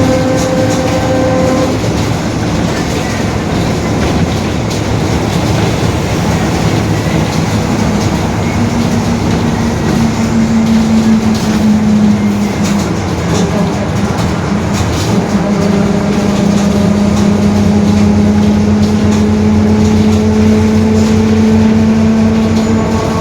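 Mercedes-Benz OF-1721 BlueTec 5 city bus under way, with steady diesel and road noise. A droning whine from the differential comes in about a third of the way through, drops away briefly, and returns to hold steady to the end.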